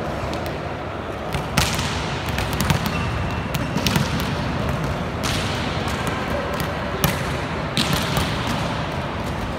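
A volleyball being slapped and bounced on the court, heard as a series of sharp single smacks one to two seconds apart, over the steady background noise of a sports hall.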